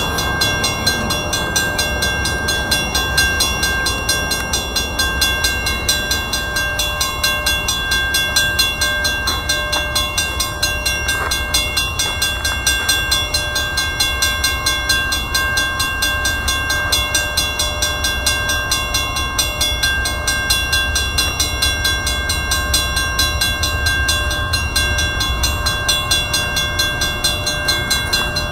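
Railroad grade-crossing warning bell ringing rapidly and steadily, over a low rumble.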